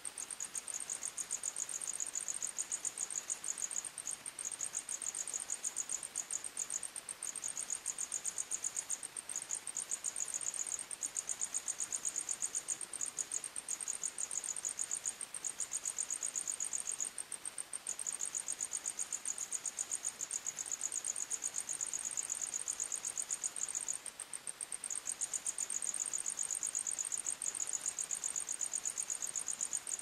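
Crickets chirping steadily in a fast, continuous trill at two high pitches; the lower-pitched singer breaks off for a second or so several times while the higher one keeps going.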